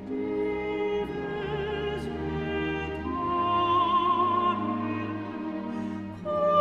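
Background music: slow orchestral or operatic piece with sustained, wavering notes, a new note every second or two.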